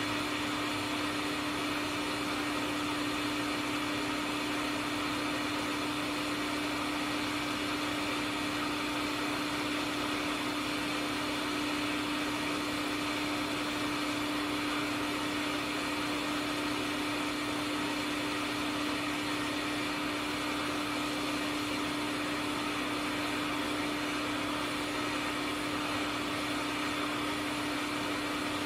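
Hot air rework station blowing steadily, a constant whoosh with an even hum, heating a board to lift off a component.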